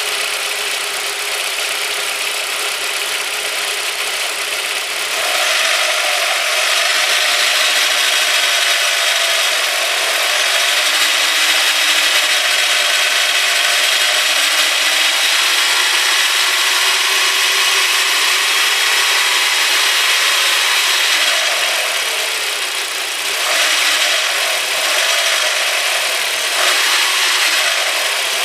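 Audi A4 1.8T AEB turbo four-cylinder engine running warm just above idle, with a bad metallic squeaking from under the valve cover. The squeak wavers in pitch, grows louder about five seconds in and eases briefly a little past twenty seconds.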